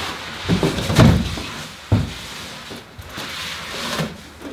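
Foam-wrapped e-bike being lifted out of its cardboard shipping box: cardboard and packing scraping and rustling, with a few thumps, the loudest about a second in.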